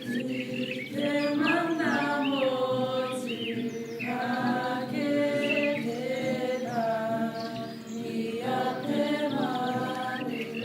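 Music: voices chanting as a choir over held low chords, with a higher sung line that slides up and down in phrases that come again every couple of seconds.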